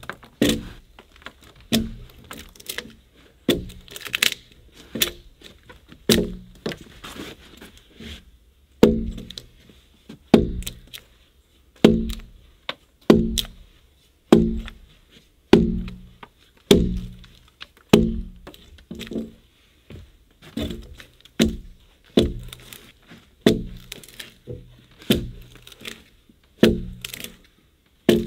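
Steady chopping blows of an axe-like blade into a peeled log, about one a second, each a sharp crack followed by a short low wooden ring from the log.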